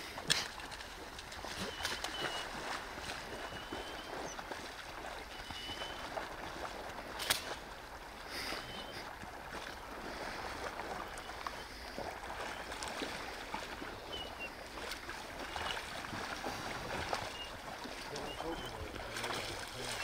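Black Labrador retriever wading and splashing through shallow creek water with a Canada goose in its mouth, the goose's spread wings dragging in the water, over the steady run of the creek. A few sharp knocks come near the start and about seven seconds in, and short high chirps sound now and then.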